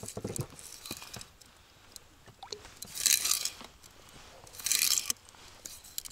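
Close handling noises: a few light clicks, then two short crunchy rustles about a second and a half apart.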